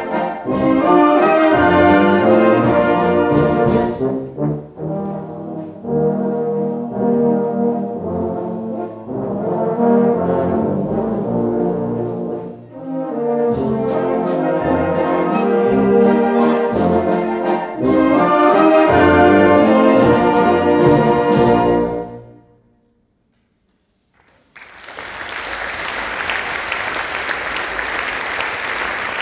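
Brass band of tubas, baritone horns, trumpets and woodwinds playing Egerland-style brass music, ending on a final chord about 22 seconds in. After a short silence the audience applauds.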